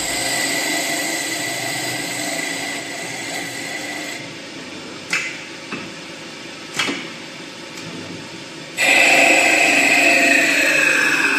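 CNC wood turning lathe running, its spindle turning the wood against the cutter with a steady whine over the noise of cutting. Midway it goes quieter and a few sharp clicks sound as the four-position tool post indexes for an automatic tool change. About 9 s in, loud cutting starts suddenly, its pitch falling near the end.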